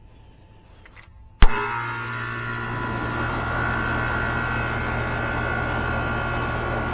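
Air conditioner condenser starting up: a sharp clack of the contactor pulling in about a second and a half in, then the compressor and fan running with a steady hum and whoosh. The compressor is starting with a TradePro TP-6 hard start kit fitted.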